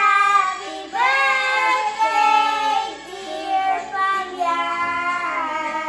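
Young children singing together, holding long sustained notes with brief breaks between phrases.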